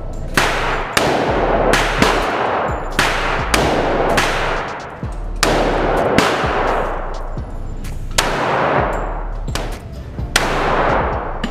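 Gunfire at a shooting range: about a dozen sharp shots in quick, irregular succession, each followed by a long echo.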